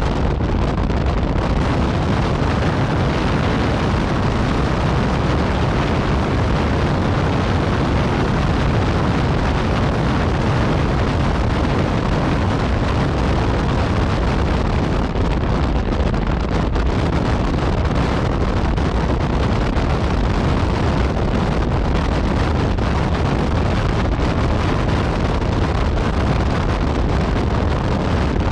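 Yamaha MT-09 Tracer's three-cylinder engine through an Akrapovic exhaust, running steadily while riding, with heavy wind rush on the microphone.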